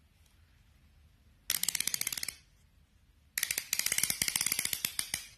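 Plastic 360-degree rotating mount for an action camera being turned by hand, its detents clicking in two quick ratcheting runs, the second one longer.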